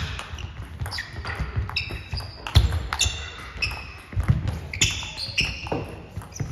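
Table tennis rally: the ball clicks off the table and the players' bats in a fast, irregular back-and-forth. Shoes squeak sharply on the sports hall floor as the players move.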